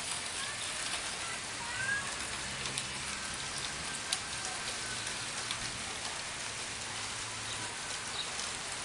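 Steady hiss of light rain and dripping water on wet pavement and grass, with a few faint ticks of drops and a couple of faint bird chirps.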